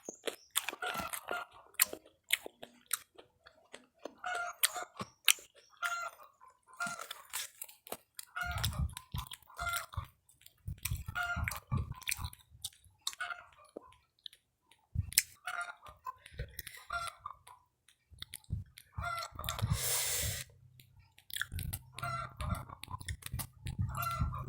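Close-up chewing and crunching of fried snacks, with many small irregular clicks from the mouth.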